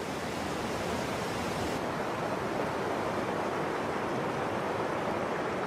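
River rapids: whitewater rushing steadily over rocks, a constant even roar with no distinct splashes standing out.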